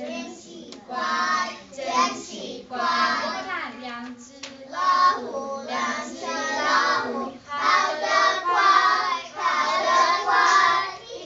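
A group of young children singing a song together, in short phrases with brief pauses between them.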